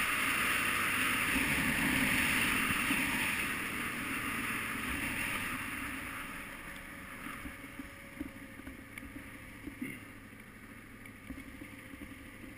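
Wind rushing over a helmet camera as a KTM 990 Adventure motorcycle is ridden along a dirt two-track. The rushing fades after about four seconds as the bike slows, leaving quieter running with scattered knocks and rattles from the rough track.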